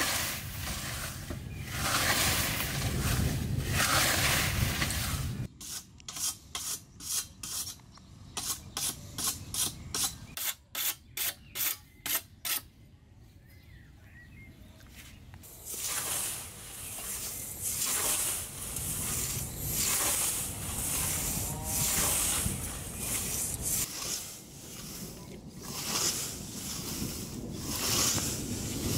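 Hand scythe cutting grass in noisy strokes, then a quick, even run of rasping strokes, about two a second, as a whetstone is drawn along the scythe blade to sharpen it. After a short pause the mowing strokes resume, about one every two seconds.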